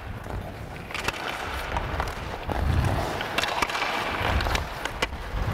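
Hockey skates gliding and scraping on ice over a low rumble, with several sharp clacks of pucks hitting stick blades as two players pass back and forth.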